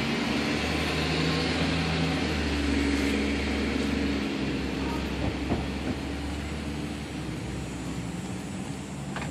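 A vehicle engine idling with a steady low hum, which drops away about four seconds in.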